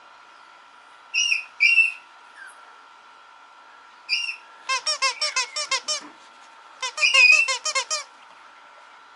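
Mame shiba puppy squealing and whining in high-pitched cries: single squeals about a second in, twice near two seconds and once past four seconds, then two quick runs of short yelps in the second half.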